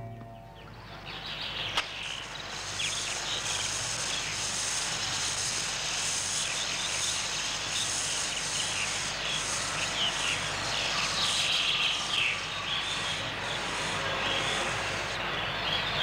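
Woodland ambience: birds chirping over a steady hiss, with a high insect buzz that pulses evenly throughout. There is a single sharp click about two seconds in.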